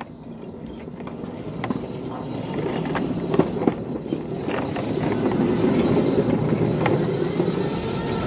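Ride-on miniature railway car rolling along snowy track, its rumble building over the first five seconds as it picks up speed and then holding steady, with a few sharp clicks and knocks. The homemade steel plow on its front is pushing through heavy, wet snow.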